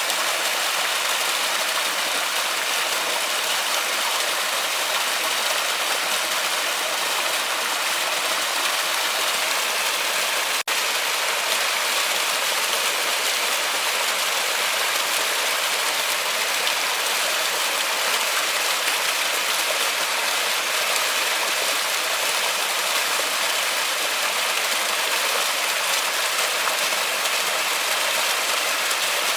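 Waterfall rushing steadily in a forest, an even hiss of falling water, with a momentary dropout about ten seconds in.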